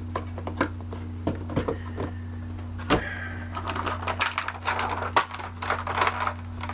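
Hands handling action-figure packaging and small plastic parts: a run of light clicks and taps that grows denser about four seconds in, over a steady low hum.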